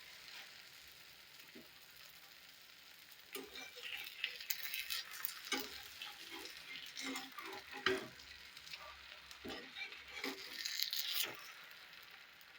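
Sweetened flour batter frying in ghee on a tawa griddle, a steady sizzle. From about three seconds in, a cooking utensil scrapes and taps against the griddle in a run of short clicks, dying down near the end.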